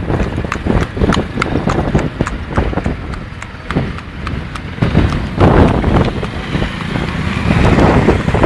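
A horse's hooves clip-clopping in a steady rhythm, about three hoofbeats a second. A louder rushing noise joins about five seconds in.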